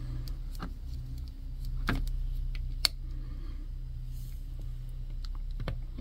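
A few light metallic clicks and scrapes as a thin pick pries the rubber dust seal off a washing machine motor's ball bearing; the sharpest click comes about three seconds in. A steady low hum runs underneath.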